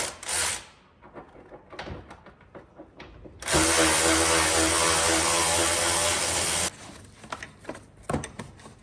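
Power drill run in two short bursts, then held at a steady speed for about three seconds before stopping abruptly, backing out a fastener while taking out an interior panel.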